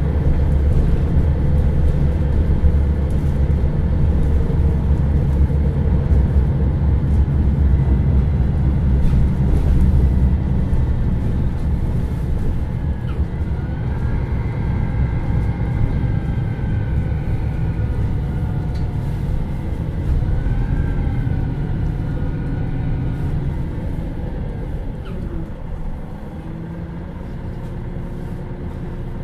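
MAN NL323 Lions City Euro 6 city bus's diesel engine running as the bus drives: a deep, steady rumble that eases off over the last few seconds. Faint rising and falling whines come and go in the middle.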